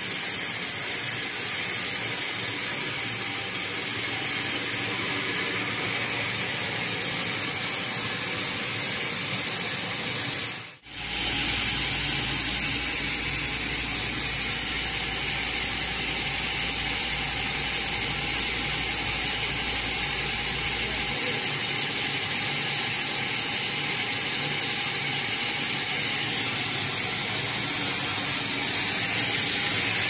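Sawmill band saw running with a steady high hiss while sugi (Japanese cedar) beams are ripped on its carriage. The sound drops out for a moment about eleven seconds in, then carries on unchanged.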